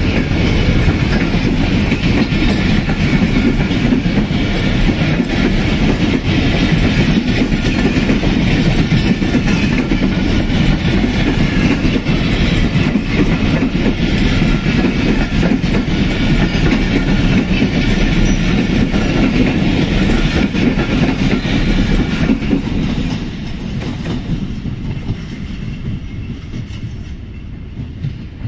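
Pakistan Railways passenger train coaches rolling past close by on the near track. The sound is loud and steady, then falls away over the last five seconds as the end of the train passes and recedes.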